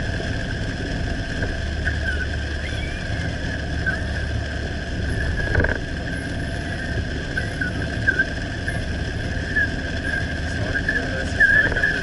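Car in motion heard from inside the cabin: a steady low road-and-engine rumble, with a steady high-pitched tone and scattered small squeaks on top and a single click about halfway through.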